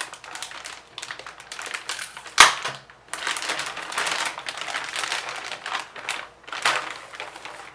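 Motherboard box and its packaging being opened and handled: crinkling and rustling, with one sharp, loud crack about two and a half seconds in.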